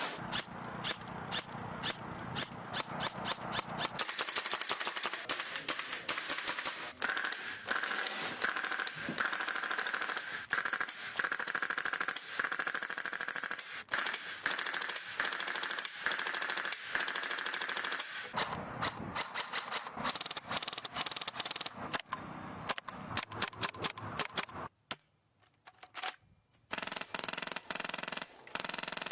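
Airsoft guns firing in rapid automatic strings of sharp shots, many per second, with a steady high tone under the shots through the middle. Firing stops briefly near the end, then resumes.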